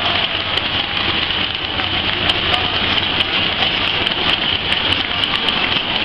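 Stadium crowd cheering after a touchdown: a loud, dense, steady wash of noise with no single voice standing out.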